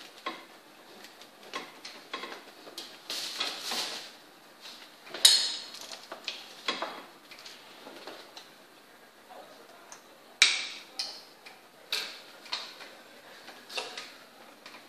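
Sharp clicks, taps and clattering as a mannequin head on its tripod and hairdressing tools are handled, with a short rush of noise about three seconds in and the loudest knocks about five and about ten seconds in.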